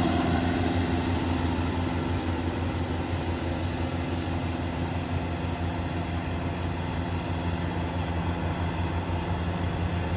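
Farm machine's engine running steadily at low speed, an even low hum that eases slightly in the first couple of seconds.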